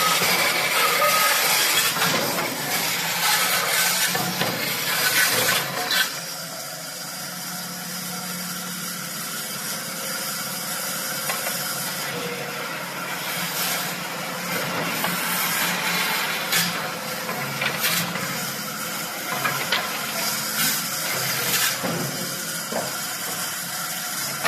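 Pallet dismantling saw machine running, with a steady motor hum and hiss and scattered sharp knocks of wood. It is louder and rougher at first, then changes abruptly about six seconds in to a steadier, quieter running sound.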